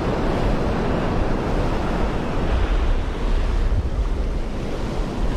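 Ocean surf washing in over a sandy beach, with wind buffeting the microphone as a steady low rumble.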